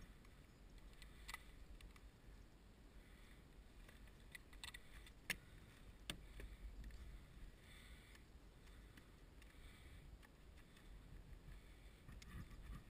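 Near silence with a few faint, sharp clicks and taps, the sharpest about five seconds in.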